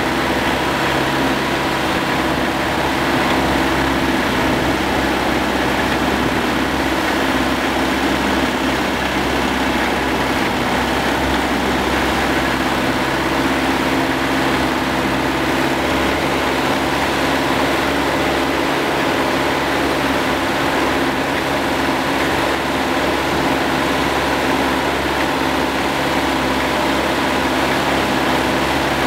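Hürlimann D70 tractor's diesel engine running steadily under way at an even speed.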